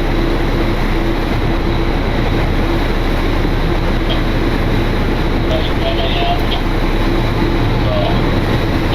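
Sportfishing charter boat's engine running steadily while trolling, a constant low drone under wind and water noise.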